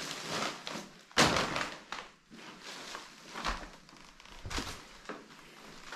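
A few separate knocks and thuds, the loudest about a second in, with smaller ones later.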